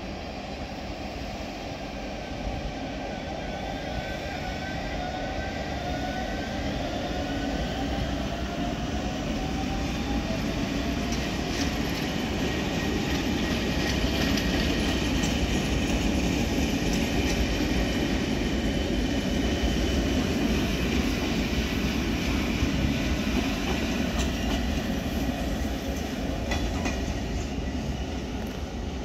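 Trenitalia Rock double-deck electric multiple unit passing along the station track. Its electric drive gives a whine that slides in pitch over the first ten seconds or so, under a wheel-on-rail rumble. The rumble grows loudest around the middle as the cars go by, with the clickety-clack of wheels over rail joints, then eases toward the end.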